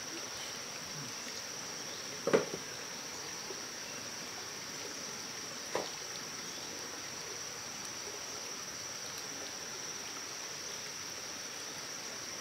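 Steady high insect drone over a hiss of running water. A sharp sudden sound about two seconds in, and a fainter one a few seconds later.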